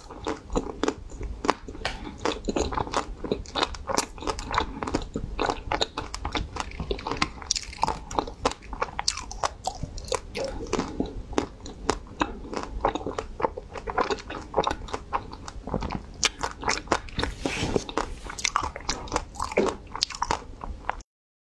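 Close-miked chewing of a mouthful of ice cream bar: a dense, steady run of quick crunching and mouth clicks that cuts off suddenly near the end.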